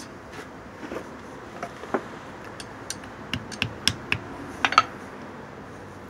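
Light, irregular metal clicks and clinks as a small socket and metal rod are handled and packed with wax in the hands, with a few sharper ticks about four to five seconds in.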